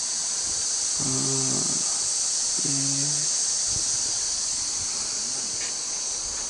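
Steady high-pitched drone of insects in the bush, with two short low hums from a man's voice about one and three seconds in.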